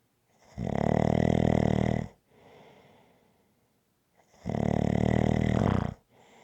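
Rhythmic snoring: two loud snores, each about a second and a half long and about four seconds apart, with a fainter breath between them.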